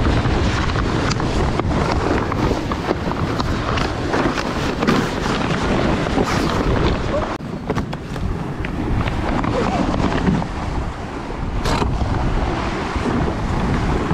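Wind buffeting the microphone over the rush of water along the hull of a 56-foot racing sailboat under sail, with a few short clatters of gear on deck.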